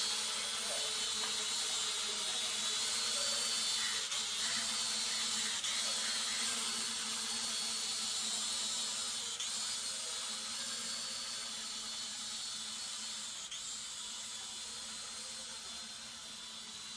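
Small foldable quadcopter drone flying, its propellers and motors giving a steady high-pitched whine whose pitch wavers and dips briefly now and then. The whine grows gradually fainter over the last few seconds.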